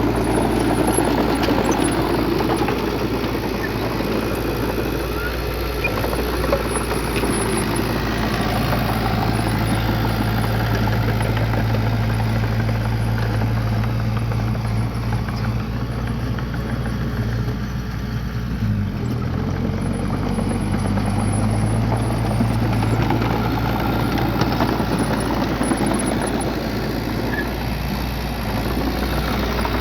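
Bulldozer's diesel engine running steadily under work, its note dropping briefly about two-thirds of the way through and then picking back up.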